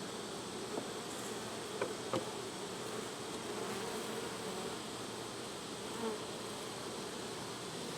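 Honey bees from an opened hive buzzing in a steady, continuous hum, with a few faint clicks around one and two seconds in.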